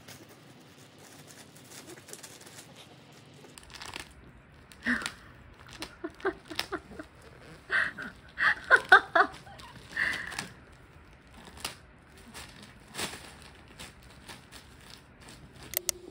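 A bichon dog chewing and pawing at a plastic bag, the plastic crinkling in sharp crackling bouts from about four seconds in to about ten, and once more around thirteen seconds.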